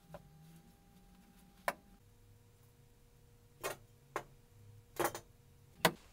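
A handmade sword being handled: five short, sharp clicks and knocks, spaced irregularly, over a faint steady hum.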